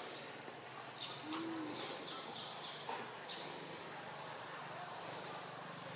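Outdoor forest ambience: a steady background hiss and faint low hum, with several bursts of high-pitched chirping in the first half.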